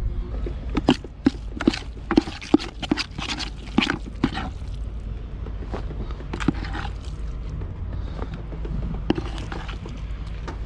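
Handling noise: a quick run of sharp clicks and knocks, then scattered scrapes and knocks of a metal spoon scooping minced fish chum from a bucket. A steady low rumble runs underneath.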